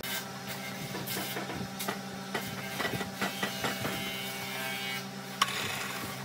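Wood lathe's electric motor running with a steady hum, with scattered clicks and knocks from the belt-driven spindle and the workpiece, and a sharp click about five seconds in.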